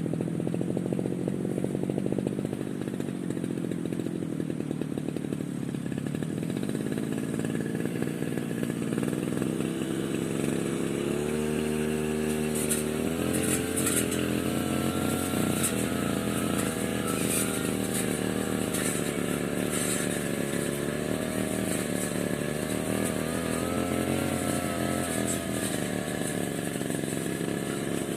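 Petrol brush cutter engine running, its pitch rising and falling repeatedly from about ten seconds in as the throttle is worked.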